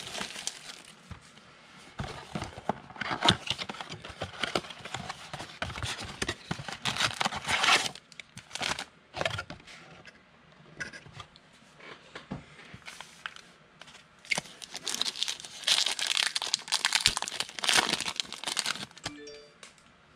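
Plastic trading-card pack wrappers being torn open and crinkled, in irregular bursts of crackling with short pauses between.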